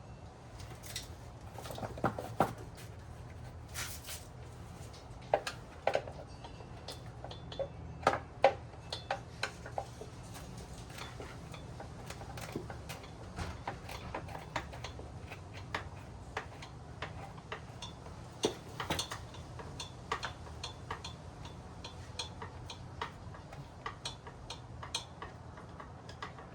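Hand tools and small metal parts clicking and clinking in irregular short taps as bolts are worked out of a motorcycle's plastic body panel, the loudest knocks in the first half.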